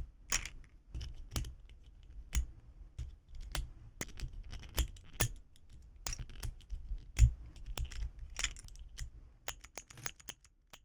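Keys of a miniature keyboard fidget toy being pressed, giving irregular clacky keystroke clicks, one louder clack about two-thirds of the way through.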